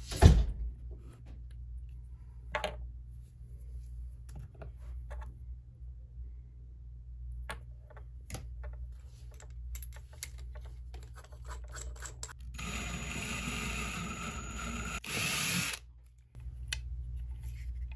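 Small clicks and taps of parts and drill bits being handled, then a cordless drill runs steadily for about three seconds and stops abruptly.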